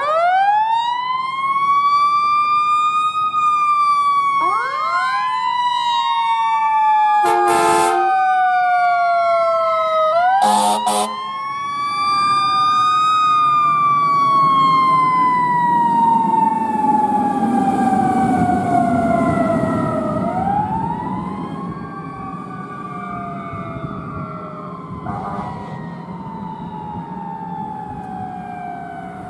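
Fire engine siren wound up three times, each time rising quickly in pitch and then slowly winding down. A second, fainter siren joins a few seconds in. Two short horn blasts sound near the middle, and the truck's diesel engine rumbles as it passes.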